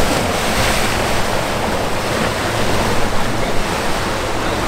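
Steady rush of churning canal current and boat wake, with wind buffeting the microphone. A low, steady hum of the boat's Mercury outboard motor runs faintly underneath.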